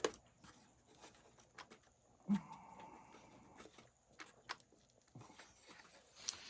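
Scattered small clicks and knocks of RC truck parts and tools being handled while working the stuck front upper bulkhead loose. There is a sharper knock at the start and another about two seconds in.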